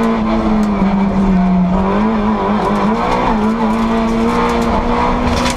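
Rally car's engine heard from inside the cabin while driving, its note holding fairly steady, then dipping and wavering from about two to three and a half seconds in before steadying again. A few sharp clicks come near the end.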